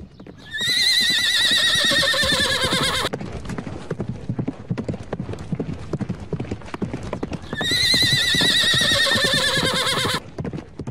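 A horse whinnying twice, each a long quavering call that falls in pitch, over a continuous run of galloping hoofbeats.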